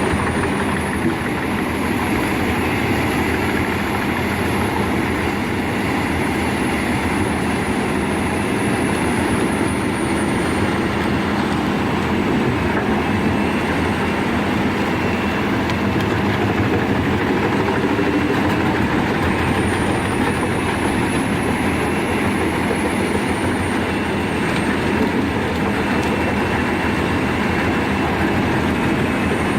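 Albach Diamond 2000 wood chipper running steadily under load, chipping logs fed in by its grapple arm. A constant mechanical din carries a low hum and a faint high whine that rises and falls twice.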